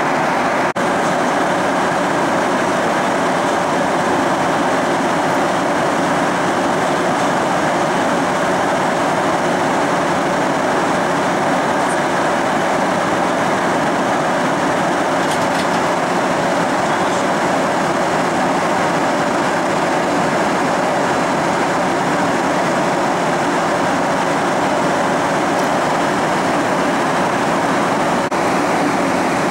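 Steady rushing cabin noise of a Boeing 737-800 in flight, heard inside the cabin: the hum of its CFM56 turbofan engines mixed with airflow over the fuselage.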